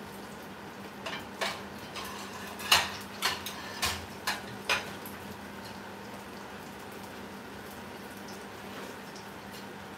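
Cookware clattering: kitchen utensils clinking against pots and pans, about ten sharp clinks in the first half, then only a faint steady hum.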